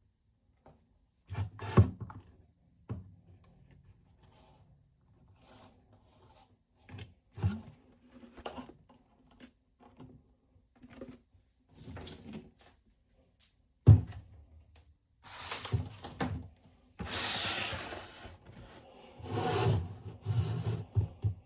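Handling noises: scattered rubbing, clicks and knocks of objects being moved about on a surface. There is one sharp, loud knock about 14 seconds in, and a denser stretch of rasping and rubbing near the end.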